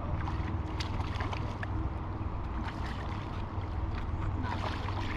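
Steady low rumble of wind on the microphone over running creek water, with scattered small clicks and taps.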